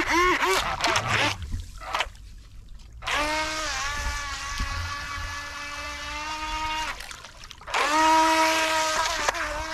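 Mini electric RC speedboat's motor whining: a few quick blips near the start while the capsized hull rights itself, then a steady high-pitched whine from about three seconds in. It cuts off near seven seconds and comes back about a second later, with water splashing and hissing under it.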